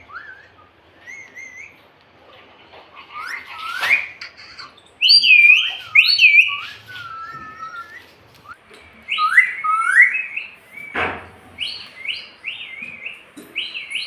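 Indian ringneck parrot chirping and whistling in a rapid run of short calls that each sweep up and down in pitch, loudest through the middle, with a sharp click about eleven seconds in.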